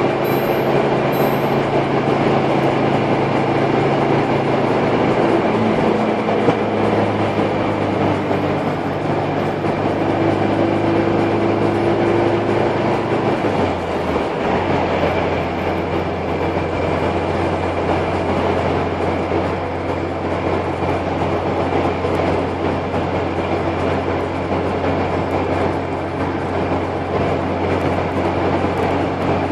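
Carburetted car engine and tyre/road noise as a steady drone while cruising in fifth gear. The engine note drops slightly about 13 seconds in.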